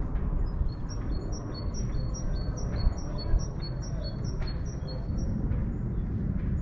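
A small bird singing a quick run of high chirps that alternate between two pitches, about three a second, for roughly four seconds, over a steady low rumble.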